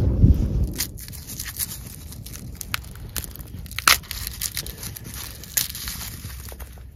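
Dry papery skin being peeled and torn off a head of garlic by hand: a run of crinkling crackles with a few sharper snaps. Wind rumbles on the microphone during the first second.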